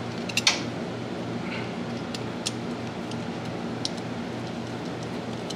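Screwdriver working a metal hose clamp on the intake tubing: a quick cluster of sharp metallic clicks about half a second in, then a few single ticks, over a steady background hum.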